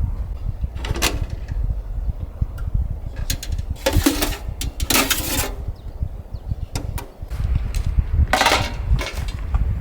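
Strong wind buffeting the microphone in a low rumble, broken by several short clattering noises.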